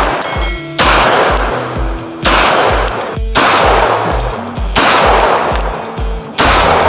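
9mm semi-automatic pistol fired five times at a slow, even pace about a second and a half apart, each shot followed by a long echo, over background music with a steady beat.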